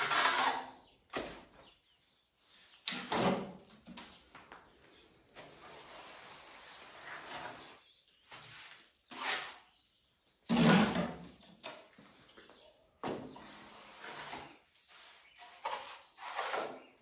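Steel trowel scraping cement mortar along a wall edge and scooping more from a bucket: a dozen or so short scraping strokes, a second or two apart.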